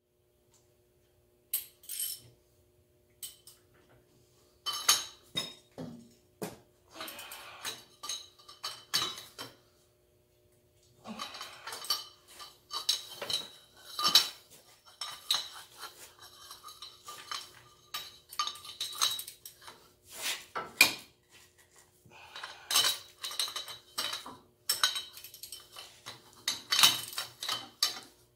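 Steel tools and parts clinking and clanking against each other in irregular clusters with short pauses, starting about a second and a half in, as the front steering knuckle (spindle) on a John Deere 4720 compact tractor's front axle is refitted. A faint steady hum runs underneath.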